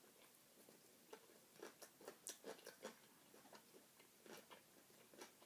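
Faint, irregular chewing of salad: a string of soft crunchy clicks close to the microphone.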